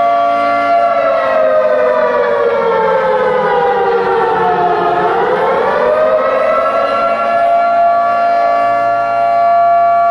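Air-raid siren sound effect played loud through a concert PA, its pitch sliding slowly down to a low point about five seconds in and then rising again, over a steady held tone.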